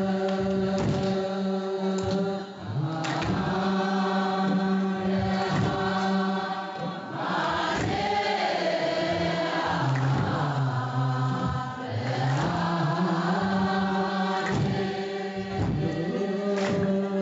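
Ethiopian Orthodox liturgical chanting by a group of voices in long held notes, with a regular beat about once a second underneath.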